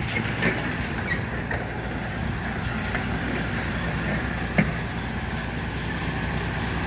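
A motor vehicle's engine running steadily, with one sharp knock about four and a half seconds in.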